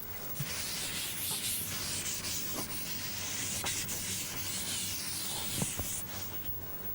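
Scratchy rubbing of writing on a surface for about six seconds, with a few light taps, stopping near the end.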